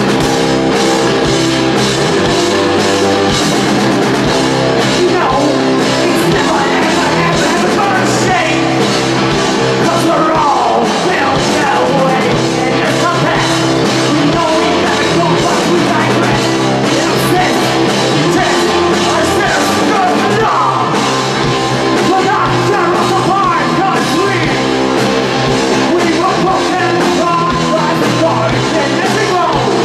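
Live rock band playing loud: distorted electric guitar, electric bass and a Ludwig drum kit, with a man singing and yelling at the microphone over it.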